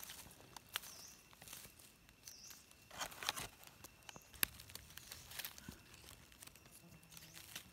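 Faint rustling and crackling of dry fallen leaves being handled on the forest floor, with scattered sharp clicks, a denser cluster about three seconds in and one sharp snap a little after the middle.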